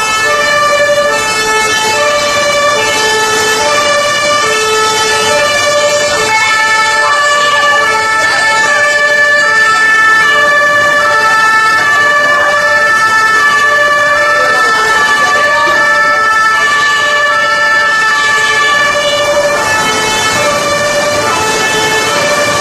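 Several emergency vehicles' German two-tone sirens (Martinshorn) sounding at once as a convoy passes, each alternating between two pitches about every half second and overlapping out of step with the others.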